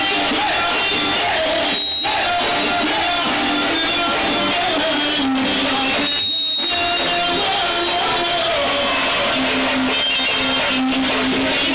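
Live dance band playing loud amplified music through PA speakers, a melody of long held notes over a dense backing.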